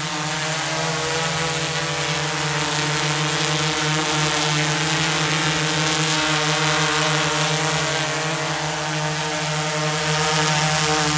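DJI Inspire 1 quadcopter hovering, its four motors and propellers giving a steady pitched buzz over a rushing hiss, a little louder near the end.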